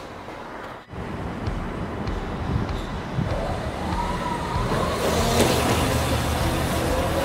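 Homemade electric kick scooter with a brushless motor and chain drive riding past on a gravel lane. From about three seconds in its motor whine wavers up and then falls in pitch as it goes by, over a steady low outdoor background noise.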